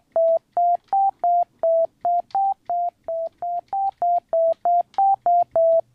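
Serum soft synth's two sine-wave oscillators playing short, pure-toned notes, about three a second, stepping among three close pitches in a repeating little pattern. Oscillator B's phase is offset from A, which makes the tone sound stereo.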